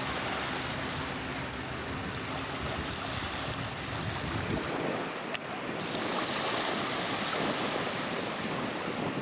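Wind on the microphone and sea surf, a steady rushing noise with no clear events.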